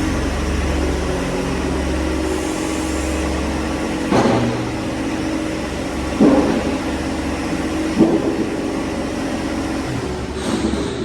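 John Deere 1025R compact tractor's three-cylinder diesel engine running steadily, with a few short, louder sudden sounds about two seconds apart.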